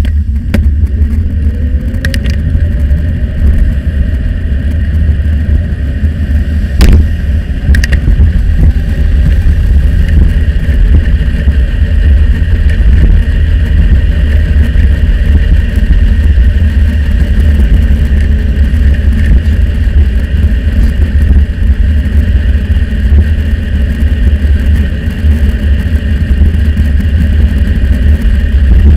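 Steady wind rumble on a bicycle-mounted camera's microphone while riding, with road traffic noise over it. A car passes in the first couple of seconds, and there is a single sharp click about seven seconds in.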